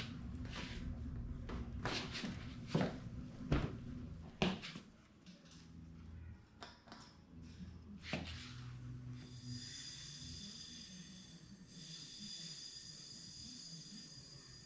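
Compressed air being let from the air compressor's tank into the air hose: a series of sharp clicks and short bursts over the first few seconds, then from about nine seconds a steady high hiss with thin whistling tones as the line pressurises.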